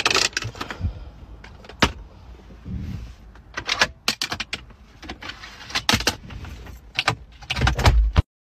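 A string of clicks and clunks from a car's interior fittings being worked by hand: the handbrake lever, a pop-out dashboard drawer and the glove box latching and opening. A heavier thump comes near the end.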